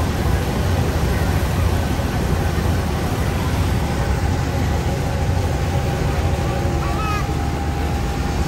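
Thames Clippers riverboat's engines running steadily under way, heard on board as a deep, even rumble with a faint hum and rushing noise over it.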